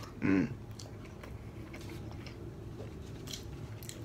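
A person chewing a mouthful of fried chicken close to the microphone, with faint wet mouth clicks. A short, louder vocal sound comes about a quarter second in.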